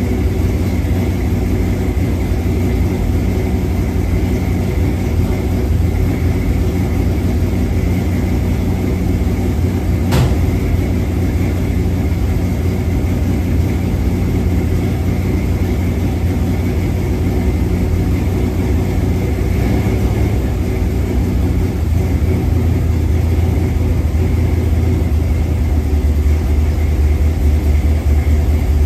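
A 1968 Dodge D100 pickup's engine idling steadily, with one sharp click about ten seconds in. The idle grows a little louder near the end.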